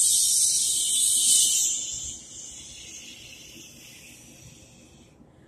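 A loud, steady high hiss for a toy spaceship blasting off. It starts suddenly, holds for about two seconds, then fades away over the next three.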